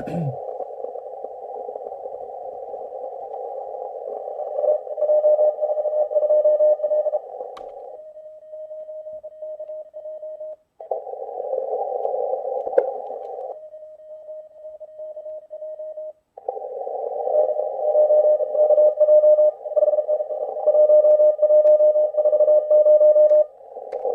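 Morse code (CW) from an HF amateur radio receiver on the 20-meter band, played through a laptop speaker. A narrow band of hiss carries a keyed mid-pitched tone sending dots and dashes. Twice the hiss cuts out, leaving only the keyed tone.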